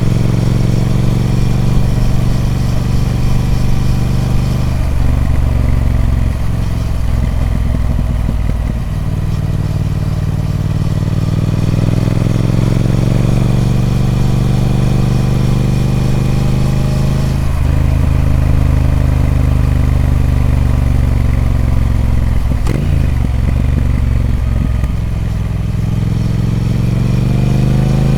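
Triumph Speed Twin 1200's 1200cc parallel-twin engine through its stock exhaust, accelerating under load. The engine note climbs slowly in each gear, then drops sharply at each gear change: about five seconds in, about seventeen seconds in, about twenty-three seconds in, and again at the very end.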